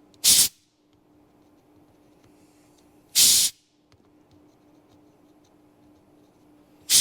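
Three short blasts of air, about three seconds apart, blowing molten solder out of a circuit board's joints to free a part. A faint steady hum runs underneath.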